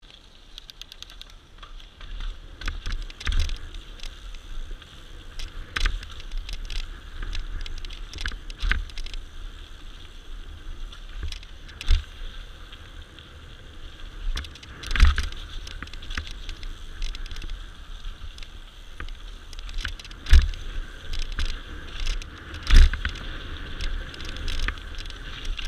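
Downhill mountain bike ridden fast over a dirt trail: a steady rush of tyres and air with frame and chain rattling, broken by hard thumps as it lands off drops, the loudest about halfway through and again near the end.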